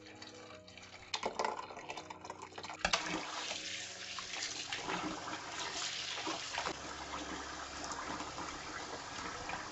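Kitchen tap running steadily into the sink and splashing over a bowl as soaked, blended black-eyed peas are rinsed through a stainless-steel colander. The tap starts about three seconds in. Before that, the bean slurry is poured into the colander, with a few light knocks of bowl on metal.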